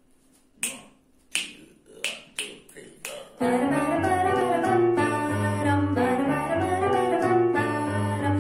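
Six finger snaps count in, the last four twice as fast as the first two. About three and a half seconds in, an electronic keyboard on a piano sound comes in, playing a Turkish longa in makam Nihavend over a sustained bass line.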